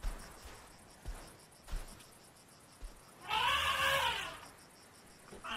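A young desert elephant (African bush elephant) gives one high, bleating call about a second long, rising and then falling in pitch, a little past halfway through: a calf's contact call between separated family members. A few soft low thuds come before it.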